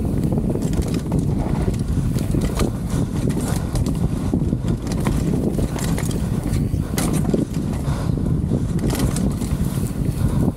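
Mountain bike ridden fast down a dirt trail: a steady rush of wind over the microphone and rumble of tyres on dirt, with frequent clicks and rattles as the bike hits bumps.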